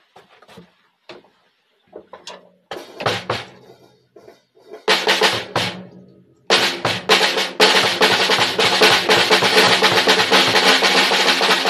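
Acoustic drum kit played with sticks: a few soft ticks, then scattered loud hits and short fills, and from about halfway a steady continuous beat of snare, bass drum and crashing cymbals.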